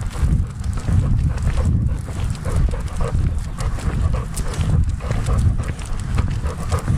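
Labrador retriever panting as it trots, heard through a camera mounted on its own harness, with repeated low thumps from its gait jostling the mount.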